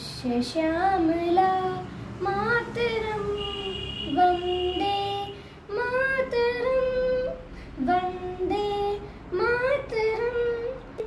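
A girl singing solo and unaccompanied, in phrases of held, gliding notes with short breaks between them.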